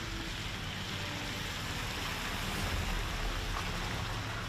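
Steady outdoor background noise: an even rushing hiss with a low hum underneath.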